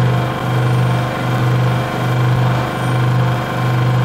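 Vacuum OCA lamination machine running, its pump giving a loud low hum that swells and dips evenly about three times every two seconds.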